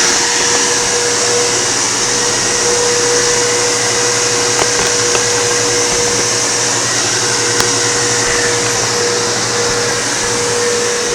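Large vacuum cleaner running steadily: a constant motor whine over a loud rushing hiss of air.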